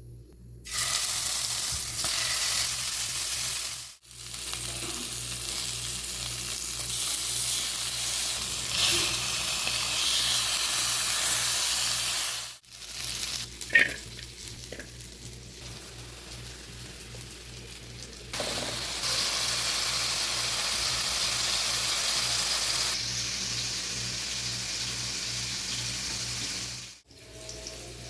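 Food sizzling as it fries in hot oil in a pan, a steady hiss that breaks off abruptly a few times and is quieter for a few seconds in the middle.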